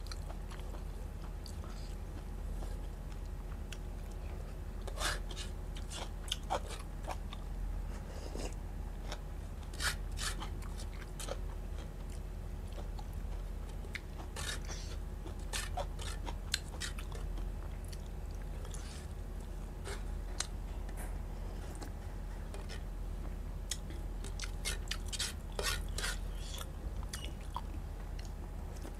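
A person chewing rice and curry eaten by hand, close to a clip-on microphone, with scattered sharp clicking mouth sounds over a steady low hum.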